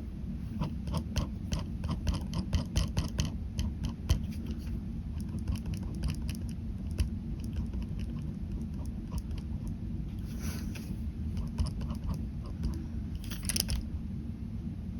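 Ballpoint pen scratching on paper in quick short strokes, a rapid run of ticks over the first few seconds and then sparser ones, with two longer scratchy strokes later on, over a steady low rumble.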